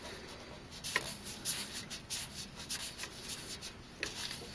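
Dry, irregular rubbing strokes of a cleaning wipe pressed hard over the metal base of a CPU heatsink, scrubbing the contact surface clean before thermal paste goes on. There is a sharper click about a second in.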